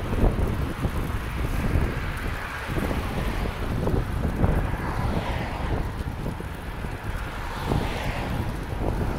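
Wind buffeting the microphone in gusts, with road traffic passing.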